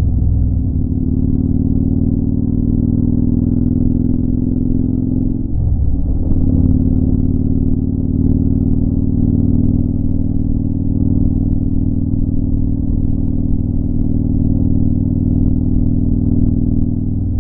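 Motorcycle engine running under way at highway speed, its pitch climbing slowly for the first few seconds. About five and a half seconds in the engine note breaks briefly for a gear change, then it runs on steadily.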